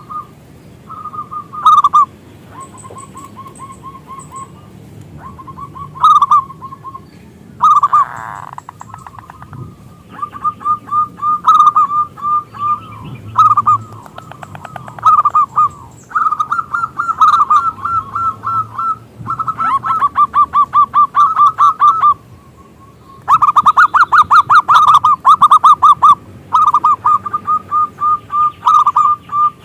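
Zebra doves (perkutut) singing: repeated bursts of rapid staccato cooing notes with short pauses between them, some bursts overlapping as more than one dove calls.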